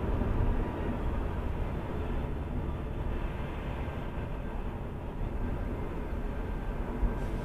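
Steady low rumble of tyres and engine inside a car cruising at about 70 km/h, picked up by a dash cam's microphone, with one brief tap near the end.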